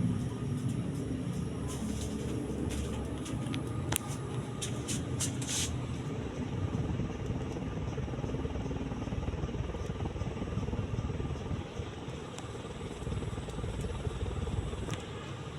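Celestique/Alaska decorative ceiling fan running, its blades moving air with a steady low rush. A few light clicks come between about two and six seconds in.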